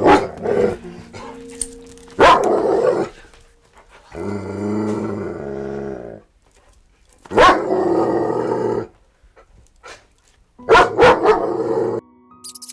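A dog barking in four loud bouts, with a drawn-out low growl in the middle.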